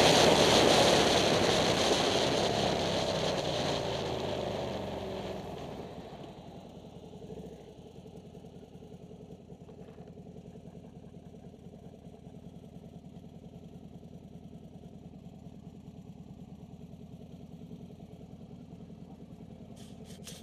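Wind rush and a turbocharged Harley-Davidson V-Rod's V-twin falling in pitch as the bike slows at the end of a drag run, fading away over about six seconds. After that the engine idles steadily at a low level.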